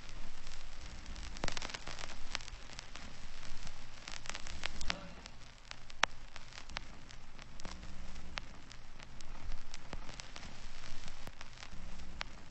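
Crackling noise: a steady hiss with many scattered clicks and a faint low hum.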